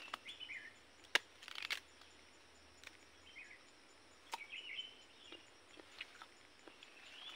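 Sharp clicks and crunches of a sickle blade cutting into a firm green mango and of a bite into the fruit, the loudest click about a second in. Faint bird chirps come and go in the background.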